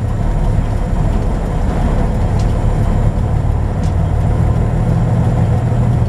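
Semi truck's diesel engine running at low speed while the truck turns slowly, heard from inside the cab as a steady low hum that grows a little stronger near the end.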